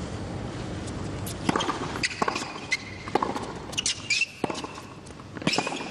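Tennis ball struck back and forth by rackets in a hard-court rally, a series of sharp hits and bounces, with a short shoe squeak on the court about four seconds in. Crowd noise swells briefly near the end as the point finishes.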